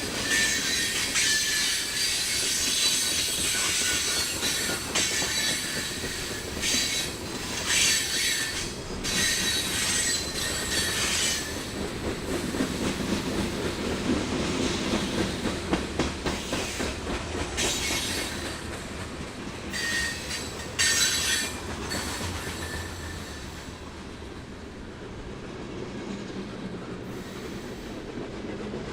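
A train rolling past on steel rails, its wheels squealing high-pitched on and off over the noise of the cars rolling on the track. The squeal is strongest in the first half, comes back briefly later, and eases off near the end.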